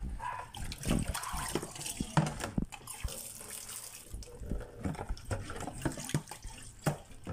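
Water splashing over live crabs in an aluminium basin as they are washed, with many sharp clicks and knocks of shells and legs against the metal.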